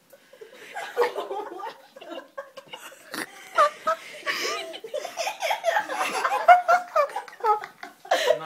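A small group of people laughing, with a few words mixed in. The laughter starts just after the beginning and keeps going, with several voices overlapping.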